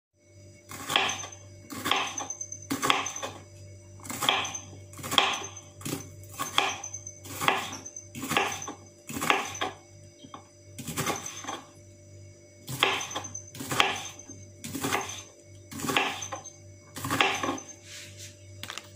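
Knife cutting through a firm bitter gourd (ampalaya) onto a wooden cutting board, one crisp cut about every second, with a couple of short pauses. A faint steady hum runs underneath.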